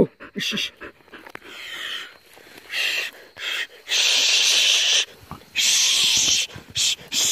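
A hunting dog with its head pushed into an animal's burrow, snorting and blowing hard in a series of loud breathy blasts, the longest about a second each.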